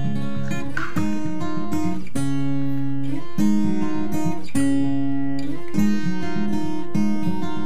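Background music on acoustic guitar, with plucked notes and strummed chords changing about every second.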